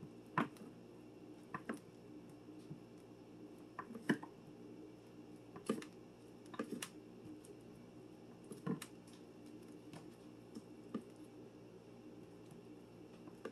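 Large kitchen knife slicing a brick of cheese on a cutting board: faint, irregular knocks and clicks as the blade meets the board, one every second or so, over quiet room tone.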